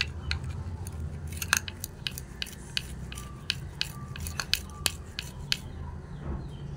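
Beetroot being grated on a tiny metal hand grater: a quick, irregular run of short scratchy strokes, a few each second.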